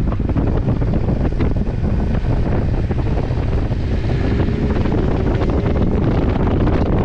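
Wind rushing over the microphone of a motorcycle being ridden at speed, loud and steady, with the engine running underneath.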